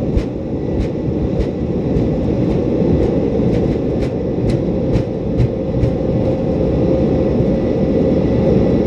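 Airbus A330 takeoff roll heard from the cockpit: a steady low rumble of the engines at takeoff thrust and the wheels on the runway, growing slightly louder. Sharp clicks come about twice a second and get closer together, then fade out after about six seconds.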